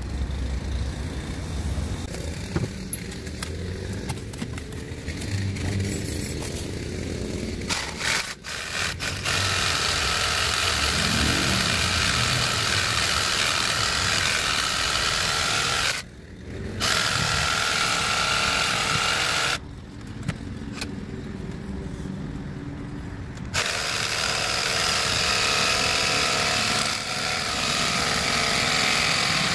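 Cordless reciprocating saw cutting through a tree root in the soil. After several seconds of quieter handling, the saw runs in three long bursts with two short pauses.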